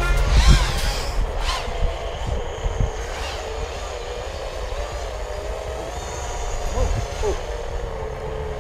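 Small racing quadcopter's brushless motors and propellers whining. The pitch wanders up and down with the throttle, with quick rising and falling sweeps in the first few seconds as it passes close.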